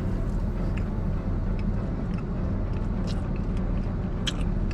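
Steady low hum with a few faint, scattered clicks and one sharper click near the end.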